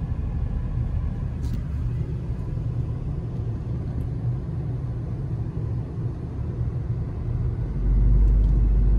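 Car driving slowly, heard from inside the cabin: a steady low rumble of engine and road noise, which grows louder and deeper about eight seconds in.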